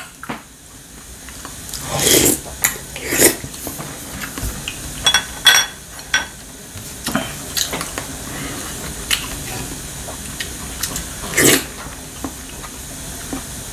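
Eating sounds: a wooden spoon scooping and knocking in a glazed pot of fish stew and chopsticks clicking on ceramic side dishes, with a couple of brief ringing clinks. A loud slurp of broth from the spoon comes a little after eleven seconds in.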